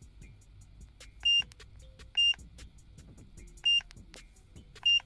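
Autel MaxiDiag MD806 Pro diagnostic scan tool beeping at key presses: four short, high single-tone beeps at irregular intervals.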